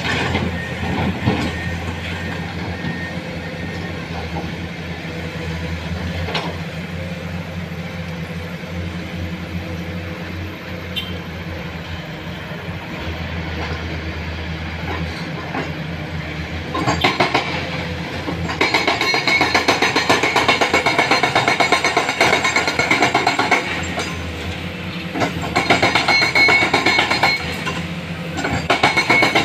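Diesel engines of Komatsu excavators and a dump truck running with a steady low hum. From about 17 seconds in, a loud, rapid metallic clattering starts, pauses briefly near 24 seconds, then returns.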